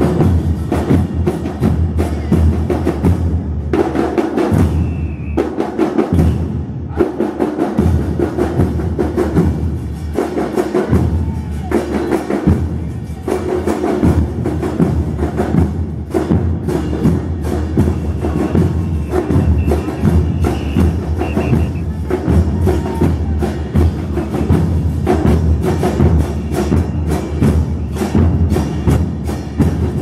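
Murga porteña drum section playing a fast, driving carnival rhythm on bombos con platillo (bass drums with a cymbal mounted on top) and snare drums, with dense steady hits throughout.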